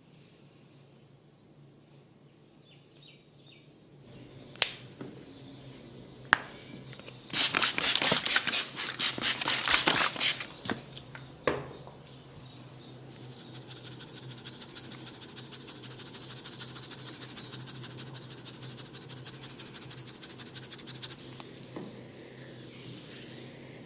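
A barber's hands working on a head and hair during a head massage. After a few quiet seconds come two sharp clicks, then a loud flurry of rapid strokes on the head and another click, followed by a long, steady, fine scratching of fingers through the hair.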